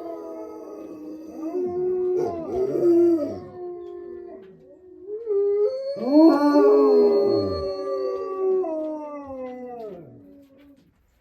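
Wolf-type canine howling: long drawn-out howls held near one pitch and sliding down at their ends, with more than one voice crossing at times. After a short lull a new howl rises about six seconds in, then the howling fades out near the end.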